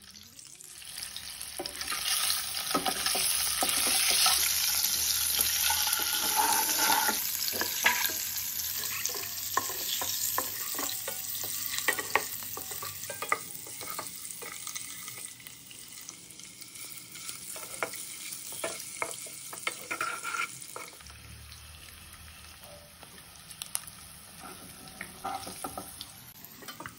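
Peeled boiled eggs sizzling in hot oil in a nonstick kadai while a wooden spatula stirs and turns them, with frequent light knocks and scrapes against the pan. The sizzle is loudest in the first third and dies down over the rest.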